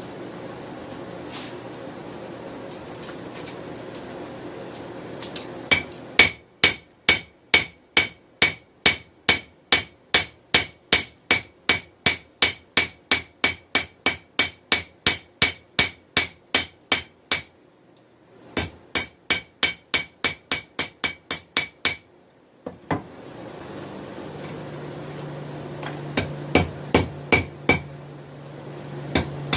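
Steady rushing of the forge for about six seconds, then a hand hammer striking hot 416 stainless steel on the anvil to draw it out, about two to three ringing blows a second. After a short pause comes a second run of blows; near the end the forge noise returns and a few more strikes follow.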